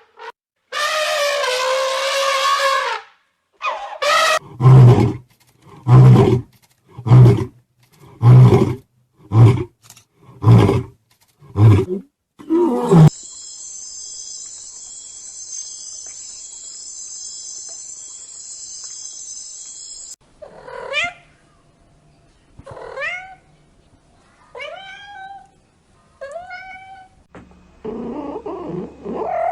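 A string of animal calls: a long pitched call, then a series of about eight deep roaring grunts, roughly one a second. Then a steady high buzz for several seconds, and a run of short, falling chirps.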